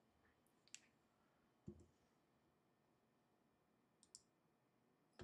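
Near silence with a few faint, scattered computer mouse clicks, one of them a soft low knock.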